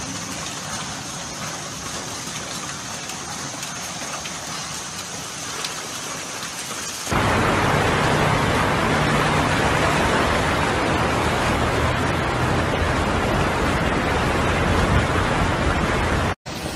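Steady hiss of rain and running water on a hail-covered street. About seven seconds in it gives way to a louder, deeper rush of floodwater, churned by cars driving through the flooded street.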